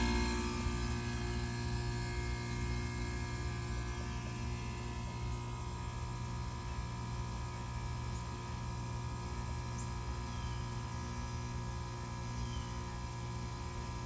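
Carrier 38YCC heat pump outdoor unit running with a steady hum, with fixed tones over it that hold level throughout.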